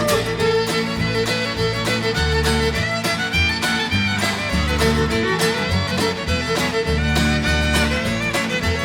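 Background music: an instrumental fiddle break in an upbeat country-bluegrass song, with a steady beat under it.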